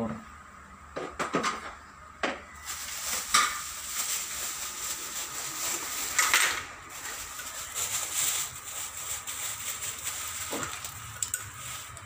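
Metal clicks and clatter of tools and refrigerant gauge hoses being handled, over a steady high hiss.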